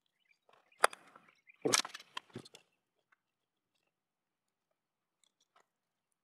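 Plastic parts of a Bluetooth headset being handled and fitted back together: a sharp knock about a second in, then a quick cluster of clicks and knocks, and a few faint ticks near the end.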